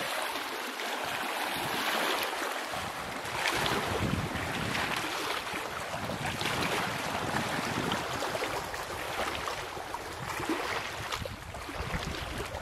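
Small waves lapping at a stony lakeshore, with wind buffeting the microphone: a steady rushing noise that swells unevenly.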